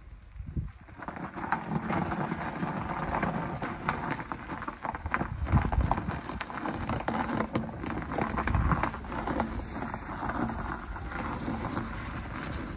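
Crackling, crunching noise over a low rumble, typical of car tyres rolling over a snowy, icy road while driving; it sets in about a second in.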